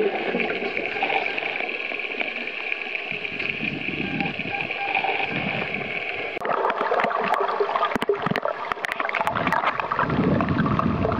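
Muffled underwater water noise through the camera housing, a steady hiss that changes abruptly a little past halfway. A scatter of sharp clicks follows, and water churns louder and lower near the surface in the last second.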